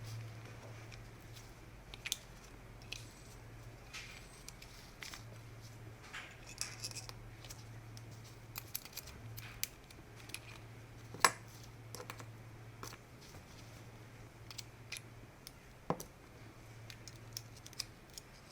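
Scattered light clicks and taps of small tools and metal parts being handled on a workbench, the sharpest click about eleven seconds in, over a low steady hum.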